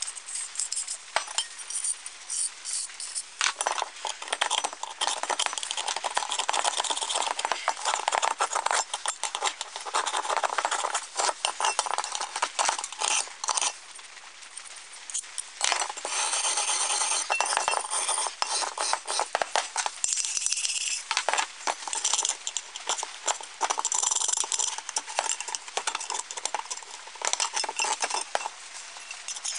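Rusty sheet-steel parts of an old camp stove being scraped by hand, first with a wire brush and then with a screwdriver tip: rapid rough strokes of metal on rusty metal with scattered clinks. The strokes are sparse for the first few seconds, then dense, with a pause of about two seconds midway.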